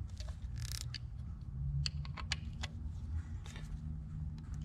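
Scattered light metallic clicks and ticks from a Phillips screwdriver tightening the screws that fasten an aluminium oil catch can to its mounting bracket, over a low steady hum.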